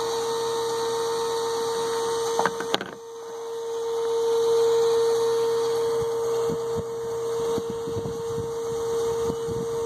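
Electric in-tank fuel pump, out of the tank and powered by a jump box, running dry with no fuel through it: a steady whine. A couple of short clicks come about two and a half seconds in.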